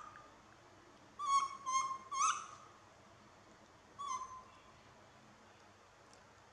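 Baby macaque giving short, high, fluttering calls: three in quick succession about a second in, then one more about four seconds in, each dropping slightly in pitch. These are the calls of a young monkey left alone, calling for her carer.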